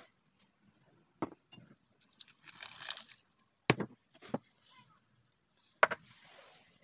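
Sugar tipped from a measuring spoon onto diced apples in a small saucepan, with a short hissing pour, then three sharp knocks of the spoon against the pan. Near the end liquid is poured in with a soft hiss.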